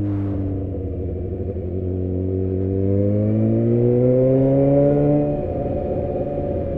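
A 600 cc sport motorcycle's engine and exhaust pull through the gears, the note rising steadily and getting louder for a few seconds as it accelerates. A little after five seconds in, the pitch drops sharply as the throttle comes off. The exhaust echoes off the buildings lining the street.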